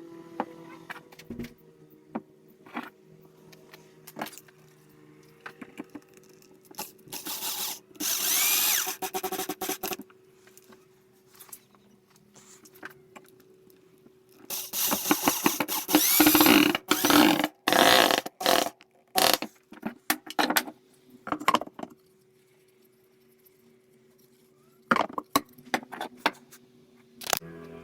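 A power tool working wood in repeated bursts: two longer runs and several short ones, over a steady low hum.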